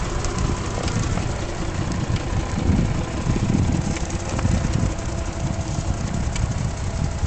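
Wheelchair rolling over brick paving: a steady low rumble with light rattling from the wheels and frame.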